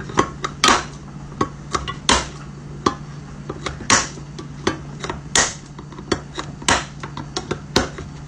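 Manual can opener's cutting wheel snapping through a tin can lid as the handles are squeezed together: a dozen or so sharp snaps, one every half second to a second, as it is worked around the rim. Each snap is the sign that the blade has cut the lid; no snap means the lid is not being opened.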